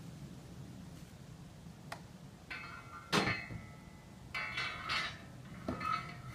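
Metal harness fittings clinking and jingling in several short bursts as a horse is being hitched, with a sharp knock about three seconds in that is the loudest sound.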